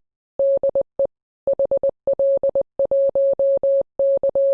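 Morse code: a single steady mid-pitched beep keyed on and off in quick groups of long and short tones, with brief pauses between groups.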